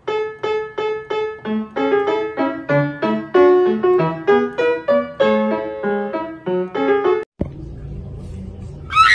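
Solo piano music: one note repeated quickly, about four times a second, then a melody with chords. It cuts off suddenly about seven seconds in, leaving a low room noise, and a short high squeal sounds at the very end.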